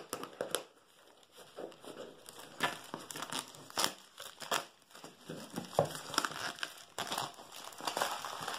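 Thin clear plastic packaging bag crinkling and crackling in irregular bursts as a cardboard headphone box is slid out of it by hand.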